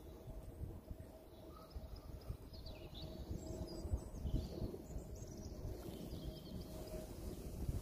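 Quiet street ambience: a low rumble of background noise with a faint steady hum, and a few faint bird chirps in the middle.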